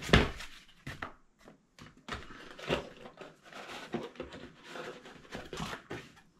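Packaging being opened and handled during an unboxing: rustling and crinkling with a series of sharp knocks, the loudest one right at the start.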